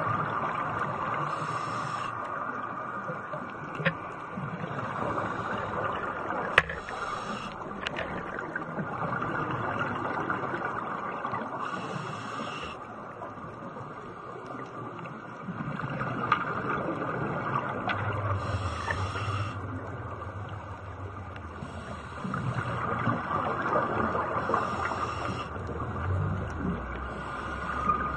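Underwater ambience recorded through a camera housing on a reef: a steady muffled hiss, with divers' exhaled scuba bubbles hissing every few seconds and a couple of sharp clicks. A low rumble comes in later on and again near the end.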